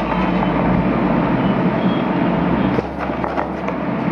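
Steady, loud background noise with a low hum, like machinery or traffic running. It eases slightly about three seconds in, with one short knock.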